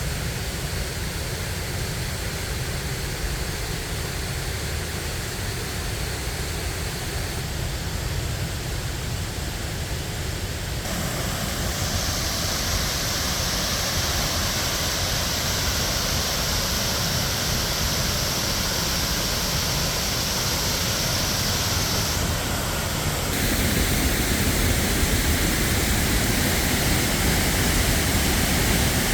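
Waterfall in full flow after heavy rain: a steady rush of falling water. It shifts abruptly in tone and loudness twice, about 11 and 23 seconds in, getting louder.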